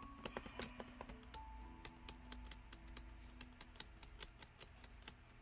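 Faint, rapid, irregular clicking, several clicks a second, over faint sustained tones that shift pitch now and then.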